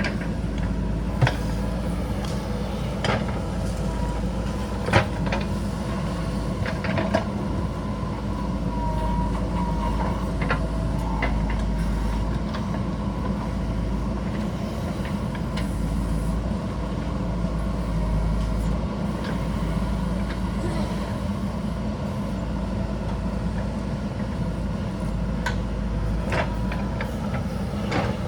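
JCB backhoe loader's diesel engine running steadily under working load, with a few sharp knocks in the first several seconds and again near the end.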